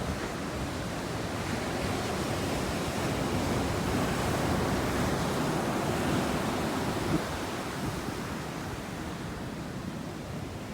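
Ocean surf breaking on a beach, heavy swell raised by an approaching typhoon: a continuous wash of waves that swells louder through the middle, with one short knock about seven seconds in.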